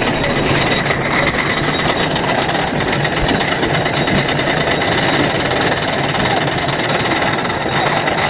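Wooden roller coaster train rattling and clattering over its wooden track as it runs, heard from on board, with a steady high-pitched whine over the clatter.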